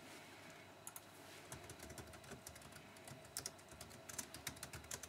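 Faint, irregular clicking of keys on a computer keyboard being typed on.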